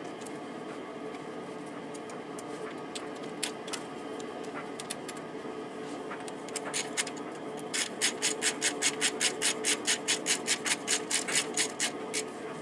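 Quarter-inch ratchet clicking as bolts are snugged into an aluminium engine cover: a few scattered clicks at first, then a quick run of about five clicks a second for the last four seconds or so. A steady hum lies underneath.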